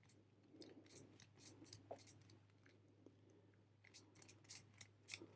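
Faint clicking of a four-wheel combination bike lock's number wheel being turned one number at a time, in small clusters a second or two apart, while the shackle is held under tension to feel which number binds.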